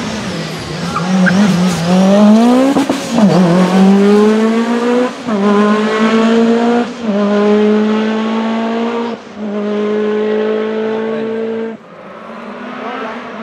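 Lancia Delta S4 rally car's turbocharged and supercharged four-cylinder engine pulling hard at high revs. Its pitch climbs through the gears, broken by short dips at each gear change, then goes quieter near the end.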